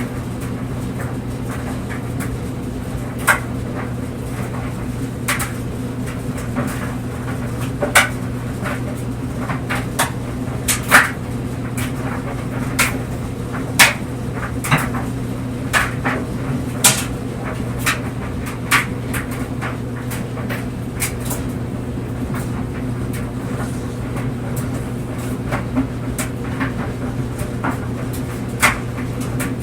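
Clothes dryer running with its steady motor and drum hum, and clothes tumbling in the drum giving irregular sharp clicks and knocks, about one every second or two.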